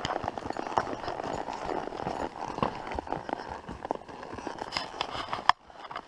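A horse's hooves striking a dirt forest trail under a rider: a running series of uneven hoofbeats. A sharp loud click comes about five and a half seconds in, followed by a brief drop in the sound.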